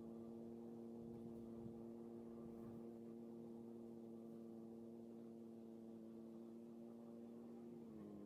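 A faint, steady pitched hum that dips briefly in pitch near the end and then recovers.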